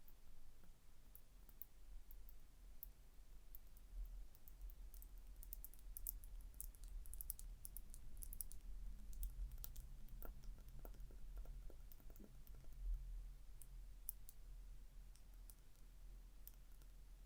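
Fingers lightly tapping and scratching on a small object, making quick, irregular clicks that come thickest in the middle, over a low rumble.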